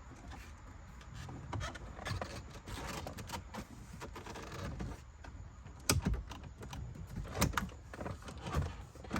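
Clicks, knocks and scraping of plastic parts as the 8.4-inch Uconnect head unit is pushed back into the dash, with sharper knocks about six seconds in and again a second and a half later.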